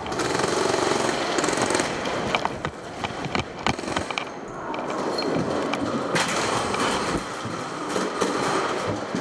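Players moving fast on a hard floor: shuffling footsteps and rattling gear, with scattered sharp clicks and knocks.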